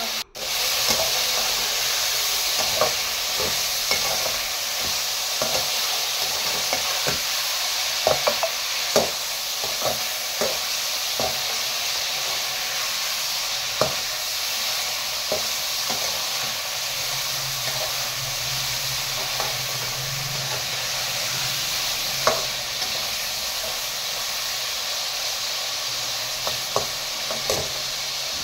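Chicken pieces sizzling steadily in hot ghee in a metal kadai, fried to take away their rawness. A slotted steel spatula stirs them, clinking and scraping against the pan at irregular moments, most often in the first half.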